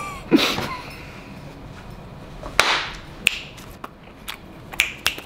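A short breathy exhale, then a few sharp, separate finger snaps in the second half.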